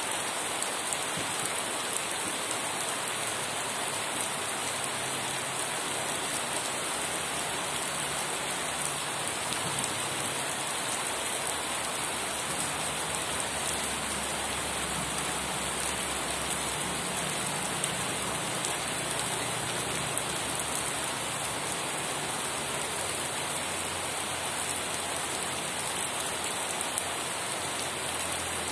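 Steady rain falling, an even hiss of drops hitting a surface, with a low rumble swelling in about halfway through.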